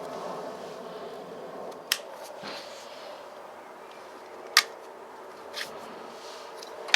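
Window motor being worked out of a VW Golf Mk4 door: a few separate sharp clicks and knocks of the part being handled, over a faint steady hum.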